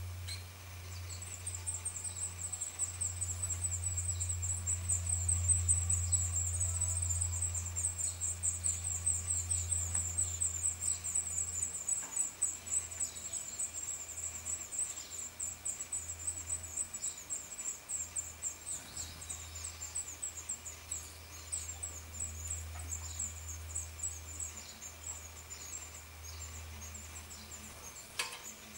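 Black redstart nestlings begging at the nest: a continuous, very high, rapid chatter of thin calls starting about a second in, loudest in the first half and thinning out toward the end. A steady low hum runs underneath.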